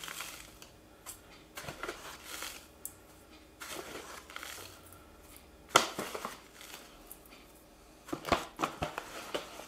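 A foil seasoning bag crinkling and a metal spoon scraping and tapping as dry spice mix is spooned into a stainless steel bowl, in scattered small rustles and clicks. A sharp tap about six seconds in is the loudest, with a quick run of small taps near the end.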